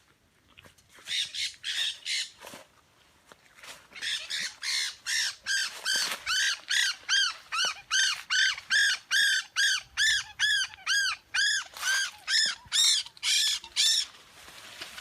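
A bird squawking over and over: a short cluster of harsh calls, then a long run of rapid, evenly spaced squawks at about three a second that stops near the end.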